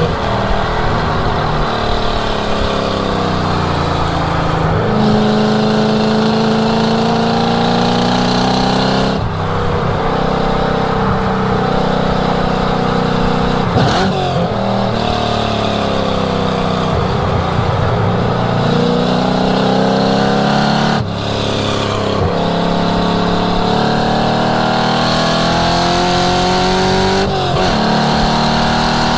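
Ford Mustang's V8 at hard throttle on a race track, revs climbing steeply and then dropping sharply at each gear change, with stretches of falling revs as the driver lifts off.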